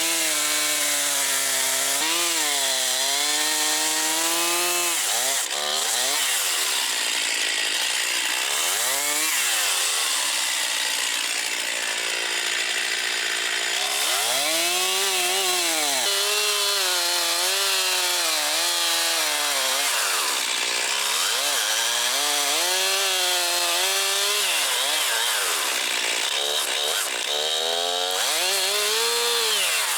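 Stihl MS362 two-stroke chainsaw running hard while cutting into a white oak trunk to fell it. The engine pitch rises and falls again and again as the chain meets the wood. It drops lower for several seconds a little after the start, and again twice near the end.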